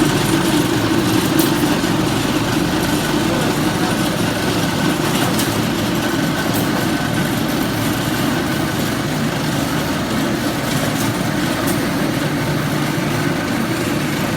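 Wire straightening and cutting machine running: a steady mechanical drone with a few faint clicks.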